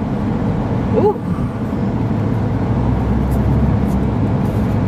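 Car interior noise while driving: a steady low rumble of engine and road noise.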